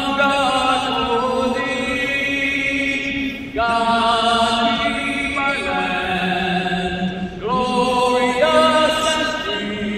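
National anthem sung by a single voice over an arena public-address system, slow phrases of long held notes.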